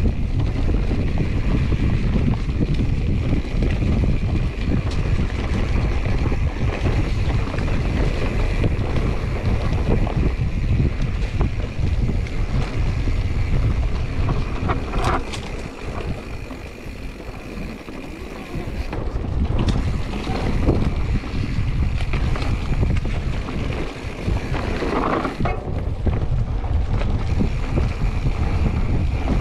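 Wind rushing on the microphone and the tyres and frame of a 2021 Giant Trance X 29 full-suspension mountain bike rumbling and rattling over a dirt singletrack at speed. The noise eases off for a few seconds about halfway, and two short higher tones stand out, one around the middle and one near the end.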